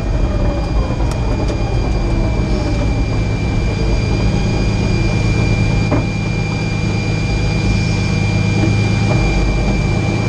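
Nissan March race car's engine idling steadily, heard from inside the cabin, with a thin steady high whine over it and a single click about six seconds in.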